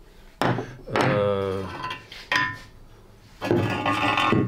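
Glazed ceramic pieces handled on a tabletop: a thunk about half a second in as a piece is set down, a short clink near the middle, then a scraping rub near the end as a piece slides across the table.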